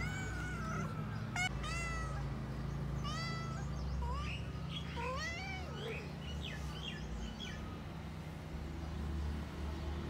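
Mother cat meowing repeatedly beside her dead kitten: a run of short, high meows, some rising and falling, that stop after about eight seconds.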